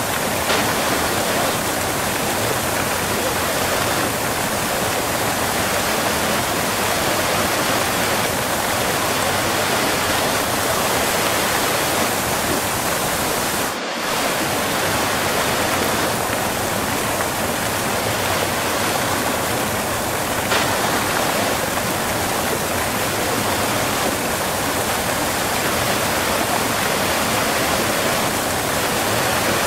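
Close-up waterfall: water falling and splashing in a steady, dense rush, with a momentary dip in the sound about halfway through.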